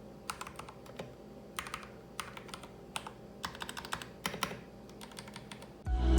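Typing on a Royal Kludge RK100 mechanical keyboard: irregular runs of quick key clacks with short pauses between them. Music comes in loudly near the end.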